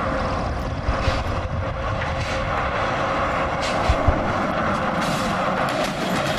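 Heavy truck running, a steady engine and rolling noise, with a couple of short knocks about four seconds in.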